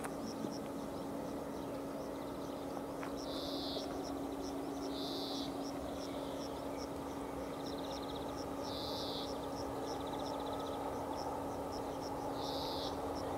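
Level-crossing warning bell (the classic bell of an AŽD 71 crossing) ringing steadily while the crossing is closed, signalling an approaching train. A few short high animal calls and buzzing trills sound over it.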